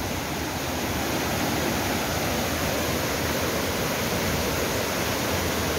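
A muddy river swollen by heavy rain, its fast floodwater rushing steadily through rapids over rocks.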